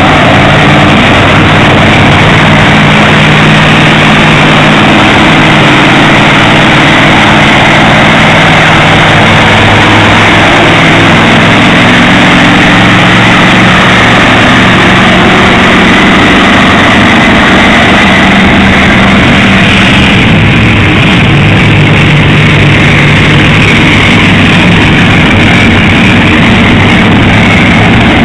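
Monster truck engines running very loud as the trucks drive off one after another, the engine pitch rising and falling.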